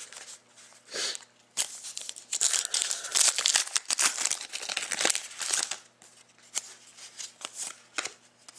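Crinkling and tearing of plastic trading-card packaging, a dense rustle lasting about four seconds from under two seconds in, followed by a few light clicks of cards being handled.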